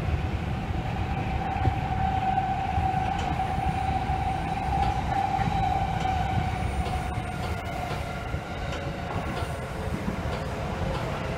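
Inside a Seibu 9000 series electric commuter car under way: a low rumble of wheels and running gear under a steady electric whine, which sinks in pitch over the last couple of seconds.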